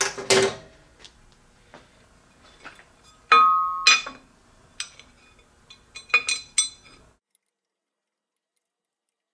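Metal clinks and knocks as a machined aluminium backing plate is offered up and fitted against the lathe's spindle housing, with one louder clank about three seconds in that rings briefly and a quick run of clinks around six seconds. The sound then cuts off suddenly.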